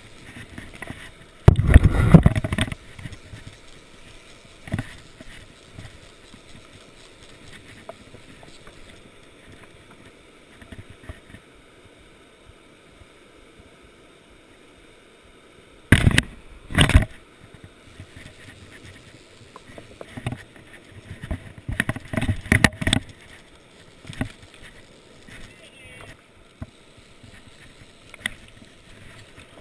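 Steady rush of river rapids, broken by loud bumps and rubbing close to the microphone: a heavy one about two seconds in, two sharp knocks in quick succession just past the middle, and a cluster a few seconds later.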